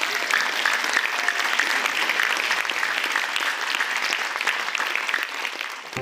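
A large audience applauding steadily with dense clapping.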